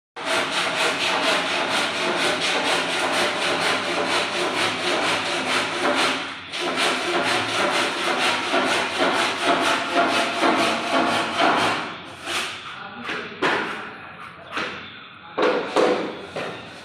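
Wood being worked by hand with rapid back-and-forth rubbing strokes, about five a second. After about twelve seconds it breaks into a few separate, slower strokes.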